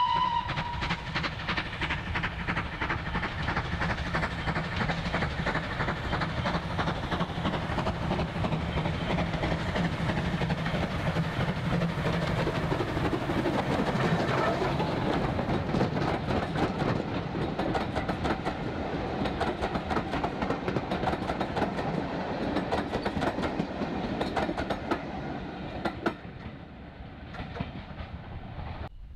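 LNWR 0-8-0 7F 'Super Dee' steam locomotive No. 49395 passing with a train of coaches, the tail of its whistle just audible at the very start. The engine's rumble and the rapid clatter of wheels over the rail joints build to the loudest point about halfway as the locomotive goes by, then the coaches clatter past and the sound fades near the end as the train draws away.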